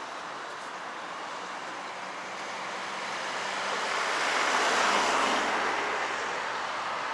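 Road traffic on the carriageway alongside: a steady hiss of tyres, with a vehicle passing close about halfway through, swelling and then fading.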